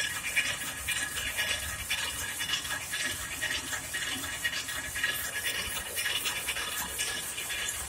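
Rapier loom running at weaving speed: a steady, rapid mechanical clatter of repeated strokes.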